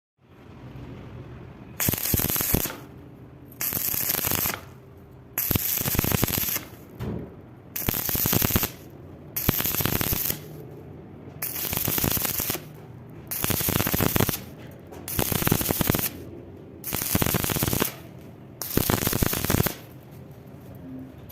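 Stick (arc) welding: the arc crackles in about ten short bursts of roughly a second each, with pauses between, as the electrode is struck and broken off again and again to bridge a wide gap.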